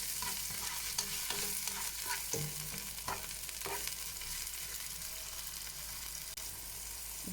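Diced onions sizzling in hot vegetable oil in a pan, with a steady hiss, while a spoon stirs them and now and then clicks and scrapes against the pan.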